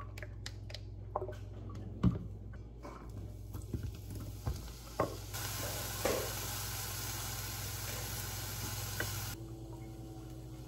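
Food sizzling in hot oil in a nonstick frying pan while it is stir-fried with wooden chopsticks, the sizzle starting about five seconds in and cutting off sharply near the end. Before it come scattered clicks and knocks of utensils and pan, the loudest a sharp knock about two seconds in, all over a steady low hum.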